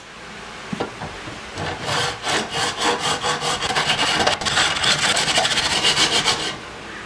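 Flat hand file scraping across a black ABS plastic ring clamped in a bench vise, in quick back-and-forth strokes that begin about a second and a half in and stop about five seconds later.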